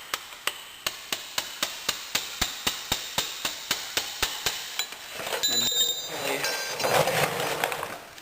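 A hammer striking a flat punch held against the end of a motorcycle's rear axle bolt, rapid light taps about four a second, to drive out the stuck axle. The tapping stops after about five seconds, followed by a short metallic ring and rattling, scraping handling noise.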